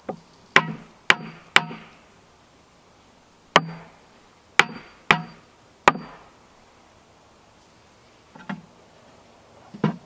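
Hammer striking the top of a wooden concrete footing form, knocking the box into level. Seven sharp blows: three in quick succession, a single one, then three more, followed by two softer knocks near the end.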